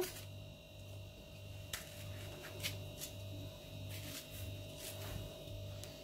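Faint, scattered ticks of a kitchen knife cutting peach flesh against a ceramic plate, over a steady low hum.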